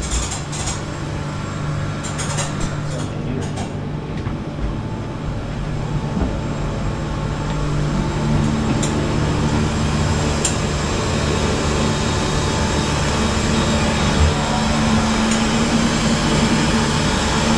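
Steady drone of running machinery in a yacht's engine room, with a constant low hum; a second steady tone comes in about halfway through, and the noise grows a little louder.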